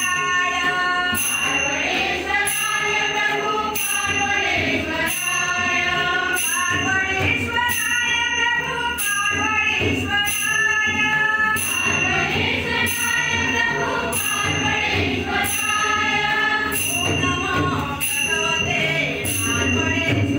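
Devotional bhajan: a group singing together over small hand cymbals (taal) struck in a steady beat about twice a second, with a double-headed barrel drum (pakhawaj) played underneath.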